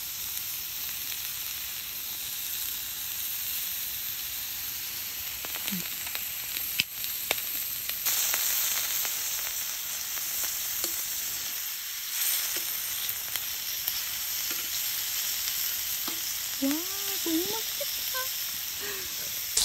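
Beef short ribs and green onions sizzling in a hot carbon steel frying pan, with soy sauce just poured over the onions. The sizzle grows a little brighter about eight seconds in, and a few light clicks sound over it.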